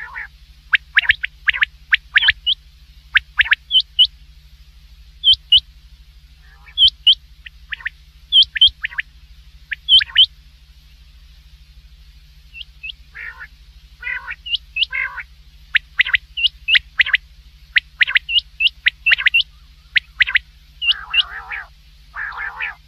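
Common quail calling over and over: short, sharp, high notes, mostly in quick groups of two or three, with a few lower, buzzier calls in between, over a faint steady low hum.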